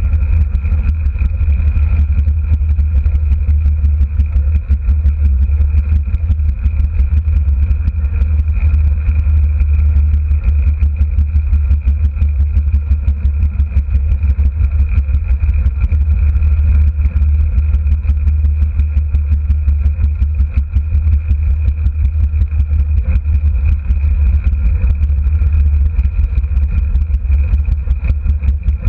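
Derny's small motor running steadily at speed, a constant low drone with a thin steady whine above it.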